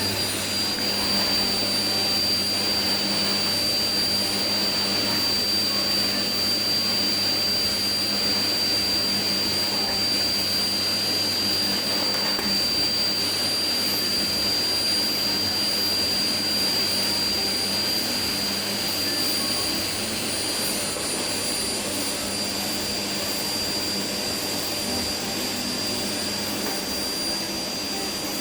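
Household vacuum cleaner running steadily: a continuous rush of air with a high, steady motor whine.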